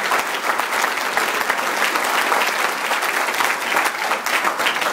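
A large congregation applauding, many hands clapping in a steady, dense patter.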